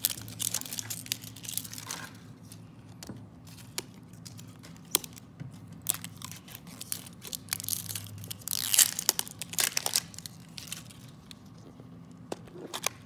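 Thin plastic wrapper being peeled and torn off a toy surprise ball, crinkling and crackling in irregular bursts. The bursts are busiest in the first couple of seconds and again around nine seconds in.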